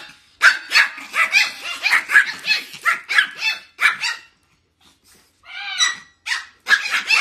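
Small puppy barking in quick, high-pitched yaps, about three a second. It stops for about a second past the middle, then barks again.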